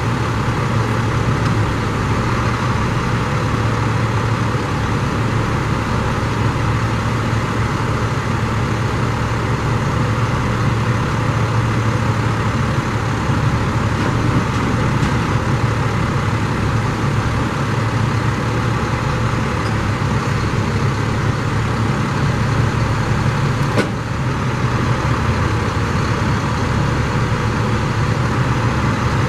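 Diesel engine of an International 4300 truck running steadily while it powers the knuckleboom's hydraulics, with the boom and grapple bucket being swung. One short click comes about 24 seconds in.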